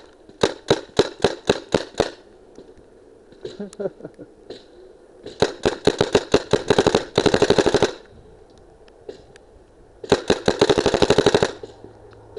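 Tippmann Sierra One paintball marker firing close to the microphone. A string of about eight shots at roughly four a second comes first. About five seconds in, a second string quickens into very rapid fire, and a further rapid string follows near the ten-second mark.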